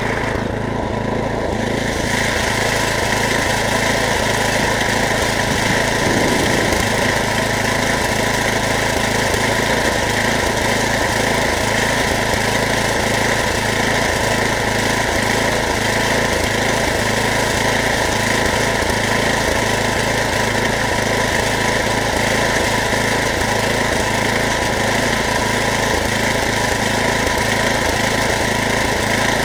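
A small engine running steadily at a constant speed, without letup.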